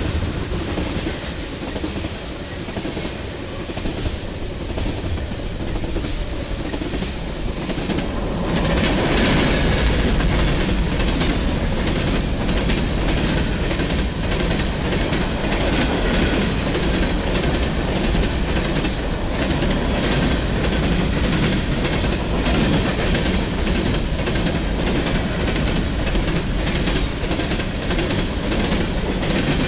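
Freight train of covered hopper cars rolling past close by: a steady rumble of steel wheels on rail with rhythmic clicking over the rail joints. It gets louder about eight seconds in.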